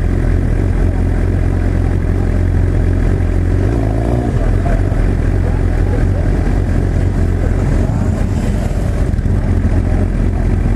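Motorcycle engine running steadily at low speed, heard from the rider's own bike, with a low, even rumble.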